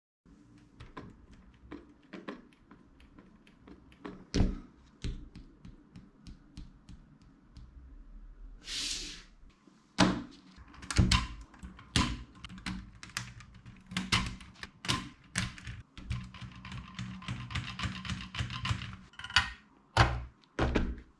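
Plastic Lego Technic parts clicking and knocking as they are handled and fitted together, with a short hiss about nine seconds in. A few heavier thunks come near the end as a plastic box of screws is set down.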